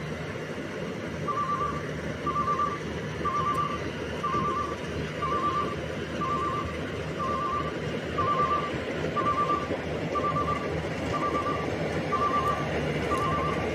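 Rice combine harvester engine running steadily, with a reversing alarm beeping about once a second over the drone.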